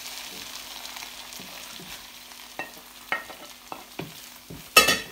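Potato and egg omelette sizzling in a frying pan, with a few light taps of a wooden spatula and a short, loud clatter near the end as the omelette is slid off a plate back into the pan.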